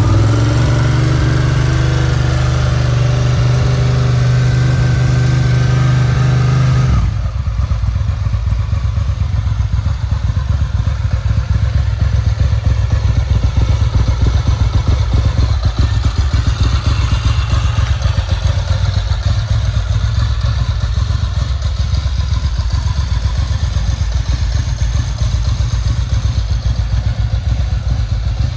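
1995 Ducati 900 Supersport SP's 904cc Desmodue V-twin running just after a cold start: held at a raised, steady speed for about the first seven seconds, then dropping suddenly to a lumpy, pulsing idle that carries on.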